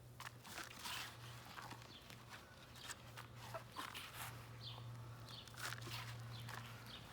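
Hands digging through loose potting soil in a container, with irregular scratching and rustling of dirt as potatoes are felt for.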